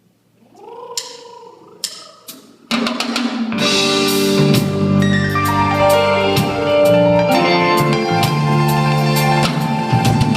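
Live rock band at a sound check: a few scattered drum hits and sliding notes, then about three seconds in the full band comes in loud, with drum kit and sustained guitar and keyboard chords.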